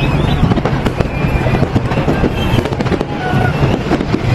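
Fireworks display going off, a dense, unbroken run of bangs and crackles as shells burst one after another.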